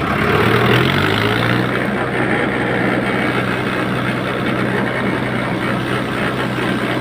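Diesel tractor engine running under load, its revs rising over about the first second and then holding steady, while the tractor is bogged in deep mud on a tow rope.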